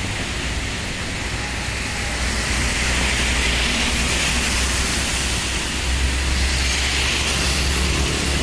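Heavy dump truck passing: a low diesel rumble under a steady rushing hiss of tyres and air, with no horn sounding. The rumble grows stronger about six seconds in.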